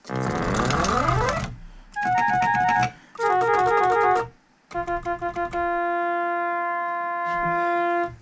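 ARP Solina String Ensemble being played as a key test: a quick sweep across the keys, then bursts of short repeated chords, then one note held for about two and a half seconds that cuts off sharply. The keys that had been badly intermittent now sound reliably after the repair.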